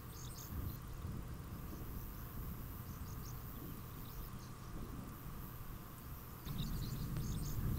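Faint outdoor nature ambience: a low steady rumble with scattered short, high chirps, a little louder near the end.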